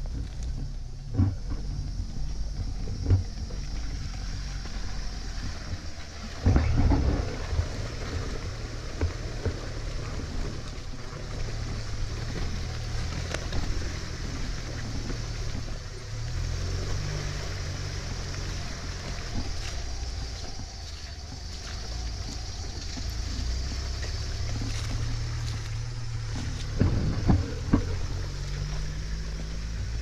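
Off-road car engine running at low revs while driving slowly over a rutted snowy track. A cluster of knocks and thumps from the car jolting over ruts comes about six seconds in, and another near the end.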